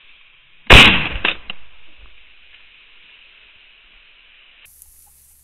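A shotgun fired once at a flushing rooster pheasant, a sharp loud blast about a second in that trails off over the next second.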